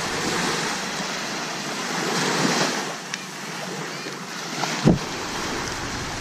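Small waves washing onto a sandy shore, with wind rushing over the microphone. A single dull thump about five seconds in.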